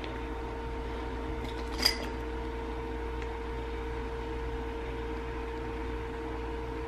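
Steady background hum of a small room, with a thin held tone over a low rumble, and one light click about two seconds in.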